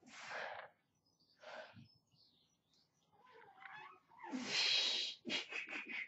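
A man breathing hard under a heavy barbell squat: a sharp exhale at the start and a smaller one about a second and a half later. Near the end comes the loudest sound, a long forceful blow of breath as he drives up out of a deep squat, followed by several quick short breaths.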